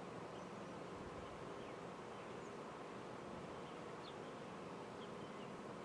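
Quiet outdoor ambience: a steady low hum with a few faint, brief high chirps scattered through it.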